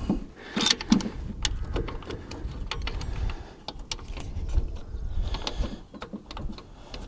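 Irregular light clicks and metal knocks as a new alternator and its mounting bolts are handled and seated in a V8 engine bay, over a low rumble.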